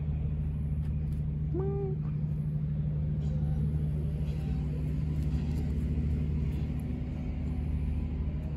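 Steady low outdoor rumble, with one short pitched call about one and a half seconds in.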